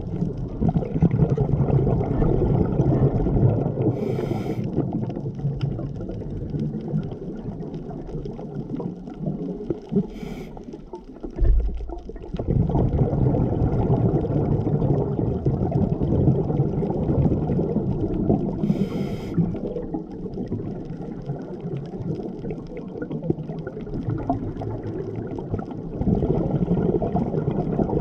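Scuba diver's breathing heard underwater: a continuous bubbling rumble of exhaled bubbles, broken three times by a short hiss as the regulator delivers an inhale.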